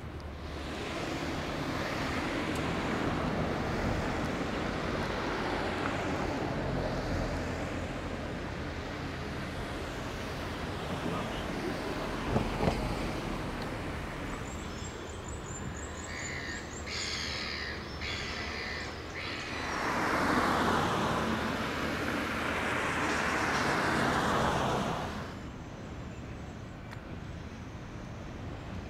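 City street traffic: vehicles passing in swells of road noise, the loudest pass about twenty seconds in. Two sharp knocks stand out near the middle.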